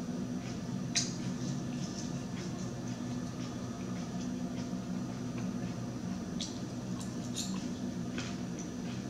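Eating sounds: a fork scraping and tapping on a plate of chopped salad, giving a few sharp clicks, with soft wet chewing, over a steady low hum.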